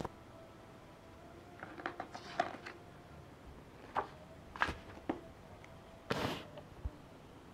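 Glossy brochure pages being handled and turned. Paper crackles and rustles, with a few sharp clicks through the middle and a brief swish near the end.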